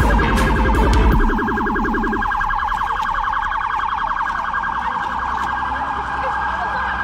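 Emergency-vehicle siren sound effect with a fast warbling wail, over a low rumble that fades out in the first couple of seconds. The siren cuts off suddenly near the end.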